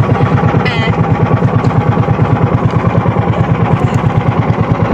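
Outrigger fishing boat's engine running steadily with a fast, even thumping beat of about eight pulses a second.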